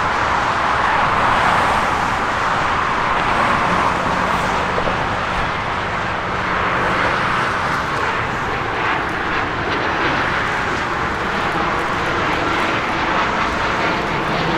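Jet aircraft engines passing, a steady rushing noise that is loudest in the first couple of seconds and eases off slowly.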